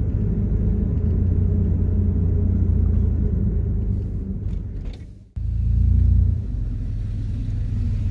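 Low, steady rumble of a van driving slowly, heard from inside the vehicle. It breaks off for a moment about five seconds in, then carries on.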